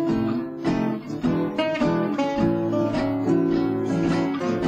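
Acoustic guitar backing music: plucked and strummed chords played continuously.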